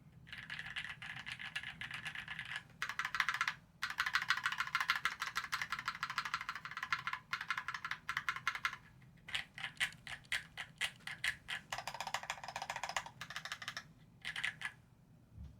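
Typing on a SQUARE.X 60% keyboard with an aluminium case and plate and lubed, filmed Gateron Kangaroo tactile switches under GMK keycaps. Fast runs of keystrokes broken by short pauses, with slower, separate keystrokes for a few seconds past the middle and a last short burst near the end.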